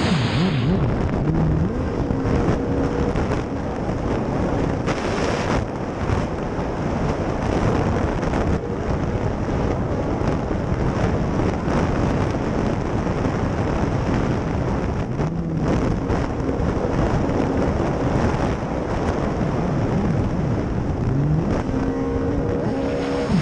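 Racing jet ski engine running hard at speed, its pitch rising and falling several times through the course, with wind buffeting the helmet microphone and water hissing off the hull.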